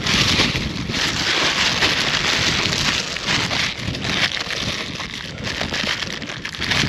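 Plastic bag crinkling and rustling as it is handled, a device pushed into it and the bag sealed up.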